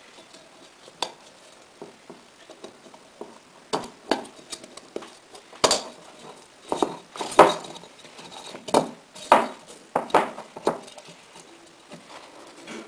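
Hands pressing and smoothing a fabric filter mesh into a perforated metal filter basket: irregular crinkling rustles and light knocks of the metal basket, busiest in the middle.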